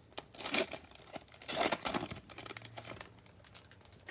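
Crinkling of a plastic trading-card pack wrapper being torn open and handled, in two bursts.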